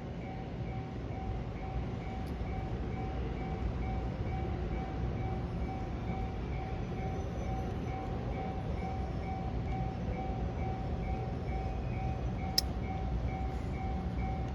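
Japanese level-crossing warning bell ringing steadily, an electronic ding repeating over and over, over a low rumble. A single sharp click about twelve and a half seconds in.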